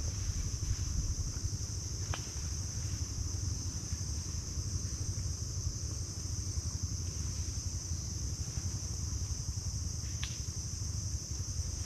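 Insects singing in a steady high-pitched chorus over a steady low rumble, with a faint click twice.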